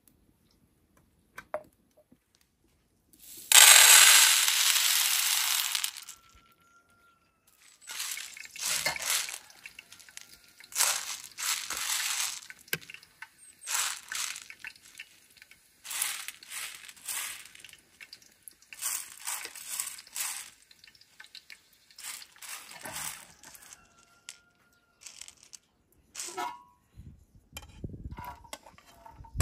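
Dry pinto beans being spread and picked over by hand on a plate, a dry rattling rustle in short strokes about once a second. A loud rush of noise lasting about two and a half seconds comes first, and a spoon knocks and scrapes against a plate and pot near the end.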